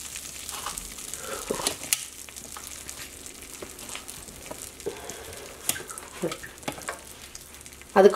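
Bay leaves frying in melted butter in a nonstick pan: a steady sizzle with scattered small pops.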